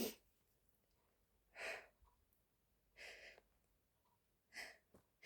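A woman's short, quiet breaths, four of them about a second and a half apart, the first the sharpest, in a pause between stifled sneezes.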